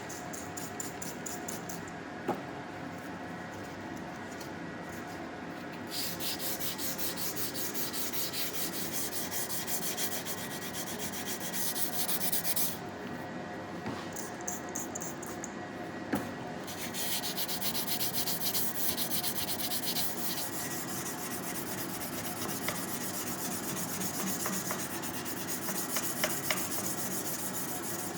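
Hand sanding of a forged Damascus steel knife blade: abrasive paper rubbed back and forth over the steel in quick, regular strokes, with a duller stretch about halfway through.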